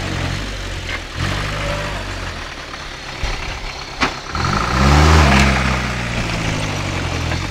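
Land Rover Series off-roader's engine revving in two surges while the truck sits bogged in deep mud: a short rise about a second in, then a longer, louder rev peaking around five seconds, dropping back to a rumble between. A sharp click comes just before the second rev.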